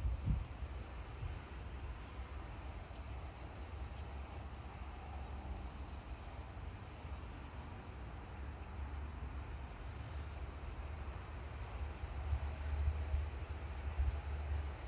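Northern cardinal giving sharp, high chip notes, about six of them at uneven gaps of one to four seconds. They sound over a steady hiss of rain and a low rumble that swells near the end.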